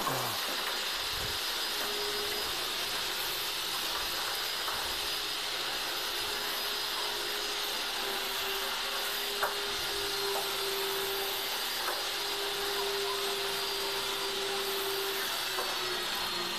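A running machine's steady drone with a thin high whine, a lower hum that comes and goes, and a few faint clicks.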